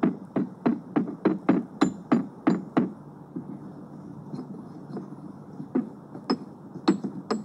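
A wooden muddler pounding kinetic sand cubes in a glass vase: quick dull thuds, about four a second. The pounding slows to soft crunching about three seconds in, and harder thuds resume near the end.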